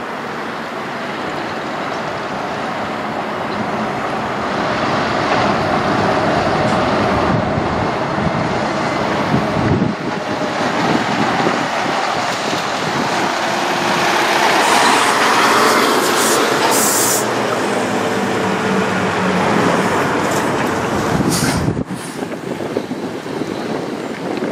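Diesel engine of a Kenworth semi tractor pulling a trailer at low speed, growing louder as it approaches and turns past. A short high hiss comes about two-thirds of the way through, and the sound drops off suddenly near the end.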